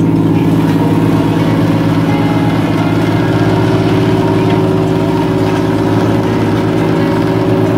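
Steady motor hum made of several even, unchanging low tones, running at a constant speed and loudness.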